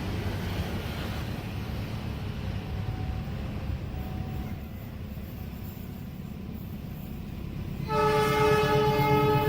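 Train running with a steady low rumble; about eight seconds in the locomotive horn sounds, a loud, held blast of several tones together.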